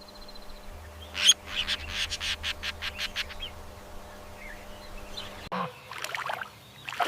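Budgerigar chirping: a sharp call about a second in, then a quick run of short high chirps for about two seconds, with a few softer calls near the end.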